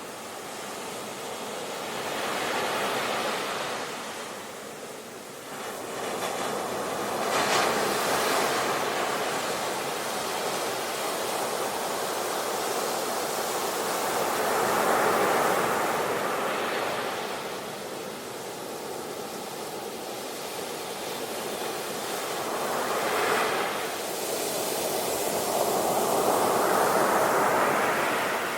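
Ocean surf breaking on a shore, a steady wash of water that swells and fades as a new wave crashes every several seconds.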